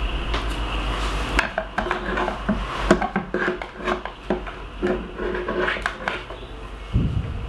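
A spoon scraping and knocking against plastic as sticky date-and-cacao fudge mixture is scooped out of a blender jug and into plastic containers: many small irregular clicks and scrapes, with a dull thump near the end.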